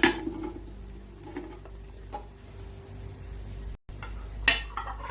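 Kitchen utensils clinking and tapping against a cooking pot as chopped potatoes go in with the vegetables, with a sharp clink at the start and another clatter near the end. A steady low hum runs underneath.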